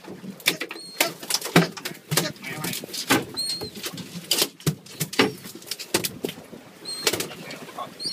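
Irregular knocks and thumps on a small fishing boat, with seabirds overhead giving several short, high, arched calls.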